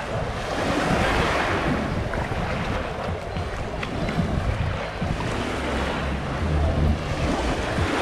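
Surf washing onto a sandy beach, a hiss that swells about a second in, with wind rumbling on the microphone.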